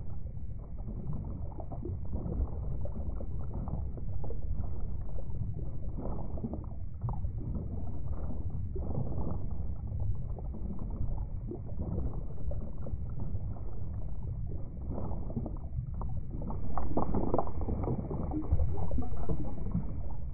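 Underwater noise picked up by a camera in its waterproof housing: a low, uneven rumble of moving water, louder for a few seconds near the end.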